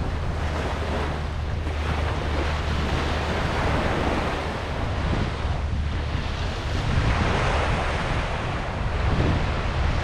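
Ocean waves washing onto a beach, a continuous surf that swells and eases every few seconds, with a low wind rumble on the microphone.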